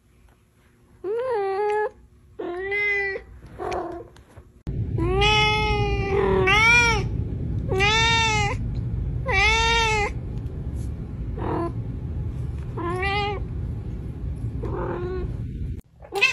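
A domestic cat meowing over and over, about ten drawn-out meows, each rising then falling in pitch. The longest and loudest come in the middle, with shorter, quieter ones near the end.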